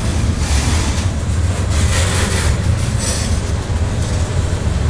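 Covered hopper cars of a freight train rolling past close by: a steady low rumble of steel wheels on the rails, with a few short bursts of higher hiss.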